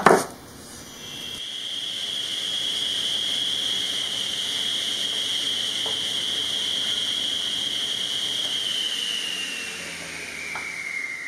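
Table saw spinning up, running with a steady high whine as a small wooden block is cut at an angle, then switched off and coasting down, its pitch falling over the last few seconds.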